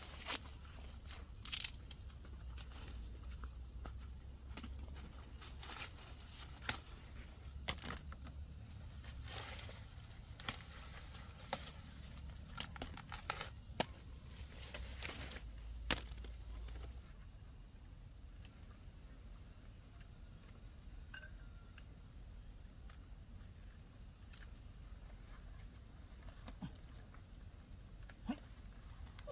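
Insects, likely crickets, droning steadily on one high note. Scattered sharp clicks and snaps sound over roughly the first sixteen seconds, with a low rumble that fades out about seventeen seconds in.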